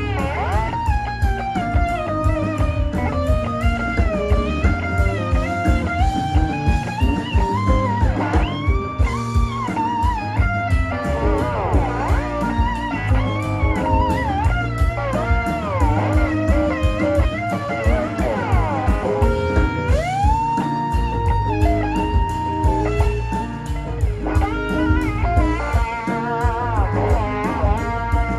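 Blues-rock band music: an electric guitar lead playing bending, sustained lines over bass and a steady drum beat.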